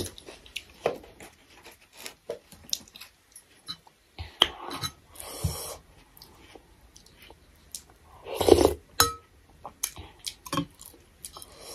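Eating noises close to the microphone: a metal spoon clinking and scraping in a stainless steel bowl of thukpa noodle soup, with chewing. There are many short clicks, and one louder, longer noise about eight and a half seconds in.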